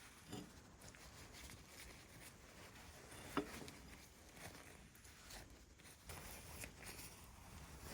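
Faint handling noises with one sharp click about three and a half seconds in.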